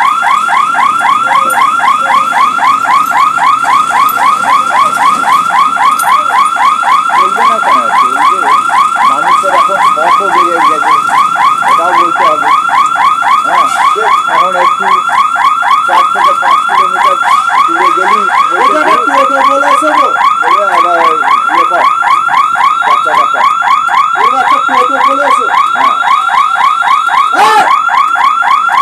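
Level-crossing warning alarm sounding without a break: a loud electronic tone in rapid, even pulses, the signal that the gate is about to close for an oncoming train.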